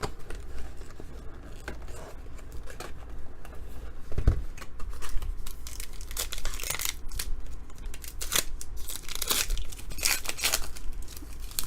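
Trading-card packaging being torn open: a retail box and its foil packs ripping and crinkling in a run of short rustles and clicks, with one dull thump about four seconds in.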